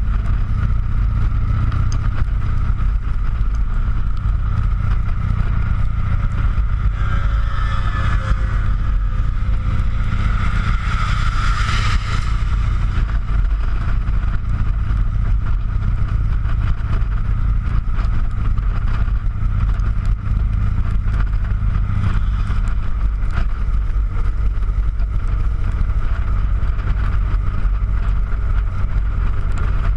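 Harley-Davidson motorcycle cruising at steady highway speed: a constant low engine rumble mixed with wind rush. A louder rushing sound swells and fades about eight to twelve seconds in.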